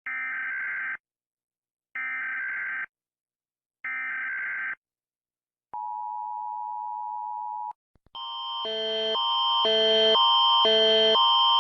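Emergency alert broadcast: three one-second bursts of screeching digital header data, about two seconds apart, then a steady two-second tone. About eight seconds in, a louder alarm starts, switching between two chords about twice a second.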